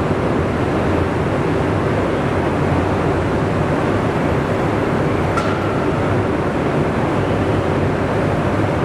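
HE&M industrial metal-cutting band saw running with a steady machine noise and a low hum. A brief click sounds about five and a half seconds in.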